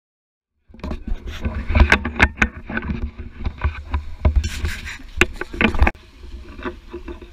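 Handling noise from a small action camera rubbing and knocking against clothing and rock: loud crackling with many sharp clicks over a low rumble. A little before the end it drops suddenly to a quieter, steadier crackle.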